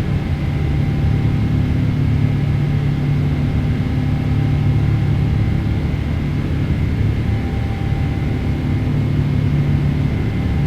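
Cabin noise of a Boeing 777-300ER in its climb: the steady low drone of its GE90 turbofans and rushing air, with a faint steady whine above it.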